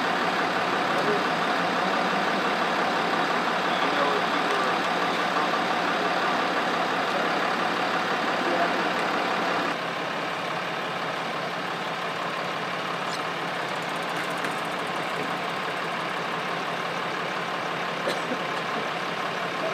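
Fire engine's diesel engine idling steadily, a little quieter after a cut about halfway through.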